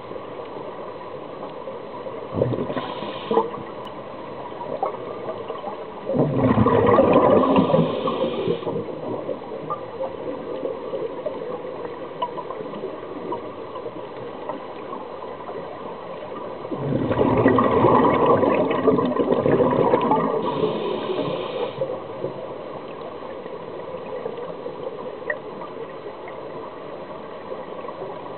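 A scuba diver's regulator breathing, heard underwater: two long rushes of exhaled bubbles, about six and seventeen seconds in, each lasting about three seconds. Shorter hisses of the regulator come between them, over a steady underwater hiss.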